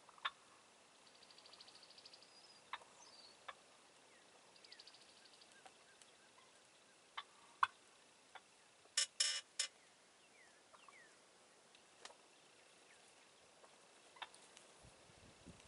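Wild turkey gobbling faintly twice, a quick rattling call about a second in and again about five seconds in, among scattered sharp clicks. A short burst of loud sharp clicks comes near the middle.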